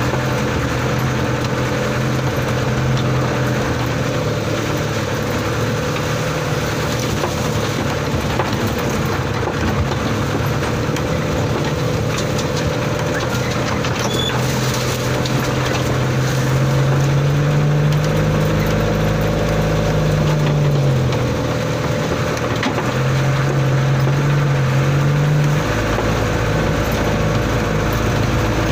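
Old truck's engine heard from inside the cab while it is driven off-road on a muddy track, working steadily with its note rising and falling as the throttle changes. The revs climb around the middle, drop back about twenty seconds in, pick up again and ease off a few seconds before the end.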